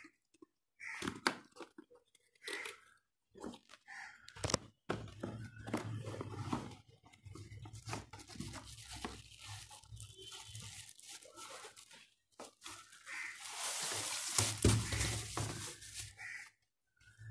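Cardboard box and plastic wrapping handled and torn open, in short bursts with brief pauses, with a longer stretch of crinkling and tearing about three-quarters of the way in.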